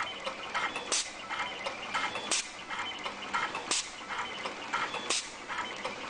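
Automatic wire stripping, cutting and twisting machine cycling: a sharp snap every 1.4 seconds, four in all, with lighter mechanical clicks between them.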